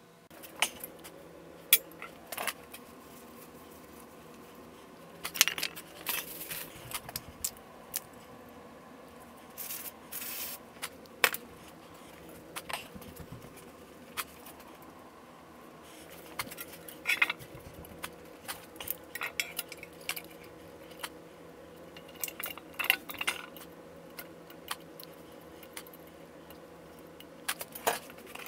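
Small metal automatic-transmission parts being handled on a metal workbench: irregular clinks, clicks and short rattles of metal on metal, with occasional scrapes. A faint steady hum runs underneath.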